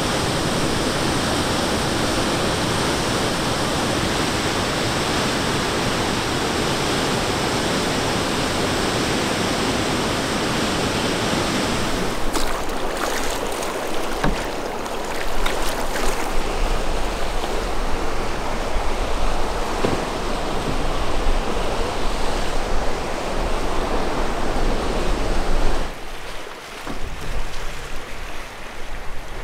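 Waterfall pouring steadily, a dense even rush of water for about the first twelve seconds. Then wind gusting on the microphone over lake waves with a few sharp knocks, quieter for the last few seconds.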